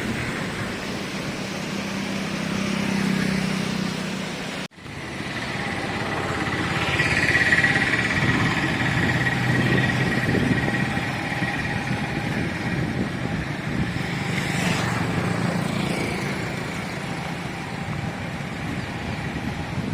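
A motor vehicle running steadily, with road and wind noise. The sound drops out for a moment about five seconds in.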